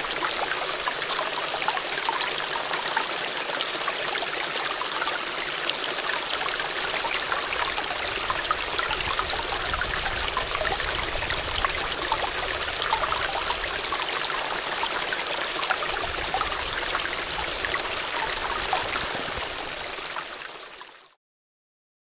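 Small stream of water pouring over a rock lip into a pool, a steady splashing and gurgling rush that fades out near the end.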